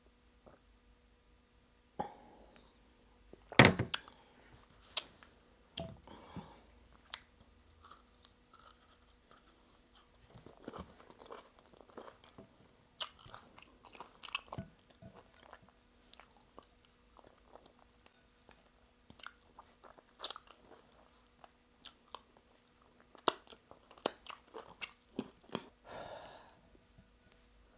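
A person eating close to the microphone: intermittent wet chewing and mouth clicks on starch fufu and egusi soup, with a sharp louder crack about three and a half seconds in.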